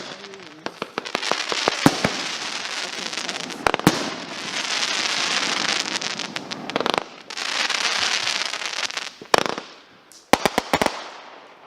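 Consumer fireworks going off: three long spells of dense crackling hiss broken by sharp bangs, with a quick string of bangs near the end.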